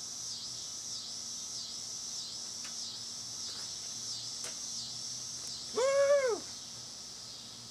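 Evening insect chorus of crickets, a steady high-pitched drone pulsing about one and a half times a second. About six seconds in, a man lets out one short, loud whoop of triumph.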